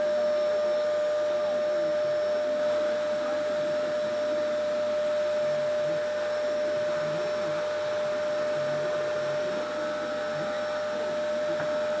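Vacuum cleaner running steadily with a constant high motor whine, its brush nozzle being worked over a Labrador's fur.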